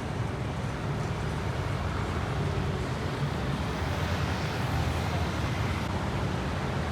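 Steady city street traffic: a continuous low rumble of engines and tyre noise from passing vehicles.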